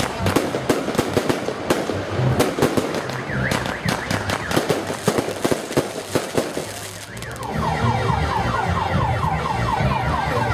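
Aerial fireworks bursting in a rapid run of cracks, bangs and crackling pops. About seven seconds in they die away, and a fast, repeating sweeping tone takes over.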